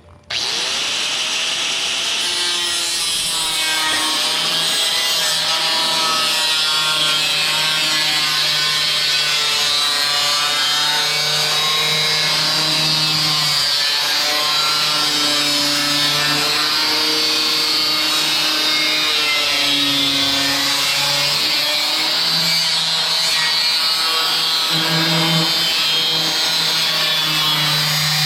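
Angle grinder with a cutoff or grinding wheel cutting through sheet metal: the motor spins up right at the start, then runs loud and steady with a wavering whine over a harsh hiss.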